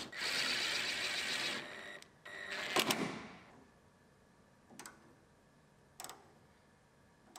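A power tool runs for about a second and a half while fitting the truck's tailgate hinge. A loud short rattle of metal clicks follows about three seconds in, then a few single clicks.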